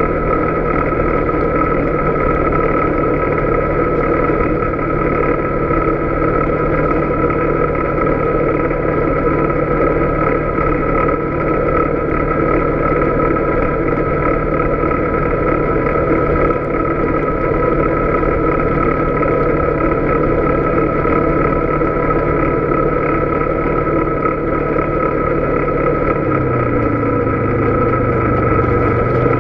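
Polaris Sportsman 570 Touring ATV's single-cylinder engine running steadily under way on a gravel road, with a steady high whine over it. Near the end the engine note drops a step lower.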